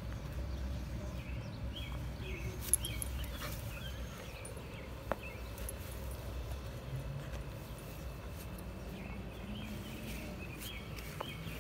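A dog rolling and squirming on its back in grass while mouthing a rubber ring toy: rustling and soft chewing over a low rumble. Clusters of short, high chirps come about a second in and again near the end.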